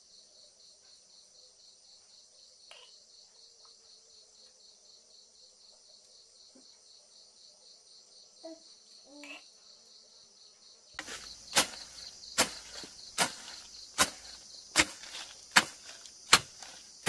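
Insects chirring steadily in a high, pulsing band. About two-thirds of the way in, a hand tool starts chopping through grass in an even rhythm, sharp strikes a little more than once a second.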